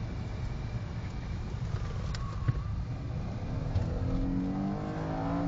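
Car engine and road rumble heard from inside the cabin at speed, the engine note climbing in pitch over the last two seconds as the car accelerates.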